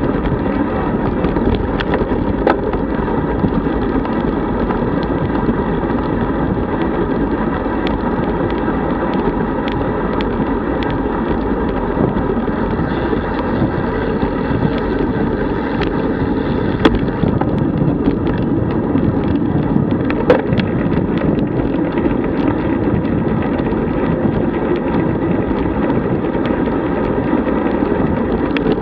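Steady rush of wind on a bike-mounted camera microphone at road-bike cruising speed, about 35 km/h, mixed with tyre and road noise, with a few sharp knocks.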